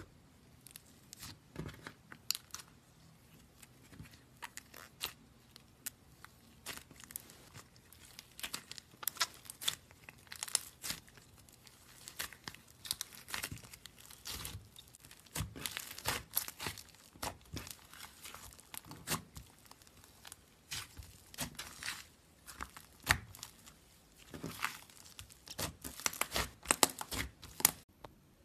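Slime mixed with clay being kneaded and stretched by hand: a dense, irregular run of sticky crackling pops and clicks, loudest near the end.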